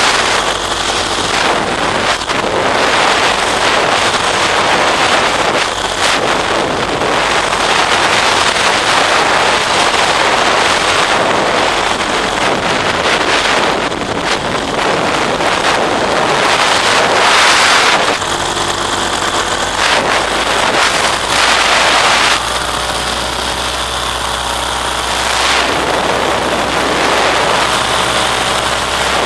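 Loud wind rushing over the microphone of a camera carried on a paraglider in flight, gusting up and down. From about three quarters of the way through, a steady low hum runs underneath.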